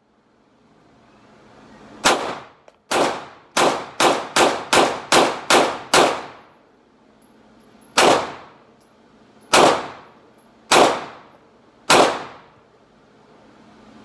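Smith & Wesson 5906 9mm semi-automatic pistol firing thirteen shots indoors, each a sharp crack with a short echoing tail. One shot, then a quick string of eight at about two and a half a second, then four slower shots a second or more apart.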